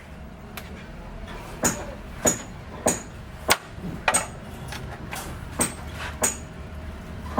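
Hammer blows, struck at an even pace of about one every 0.6 seconds, each with a brief high ring; the strikes pause for a second or so past the middle and then resume.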